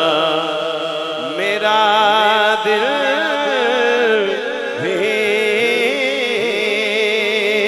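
A male naat reciter singing a long, ornamented melismatic line into a microphone, his voice wavering and sliding in pitch, over a steady low drone.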